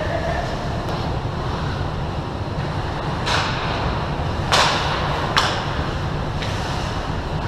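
Ice hockey skates scraping the ice, with three short hissing scrapes about halfway through, one ending in a sharp clack, over a steady low rumble.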